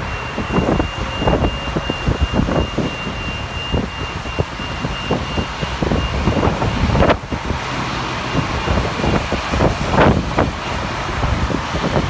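A city tour bus driving through traffic, heard on board: steady engine and road rumble with frequent short knocks and rattles and a faint steady high whine. A sharp loud click comes about 7 seconds in.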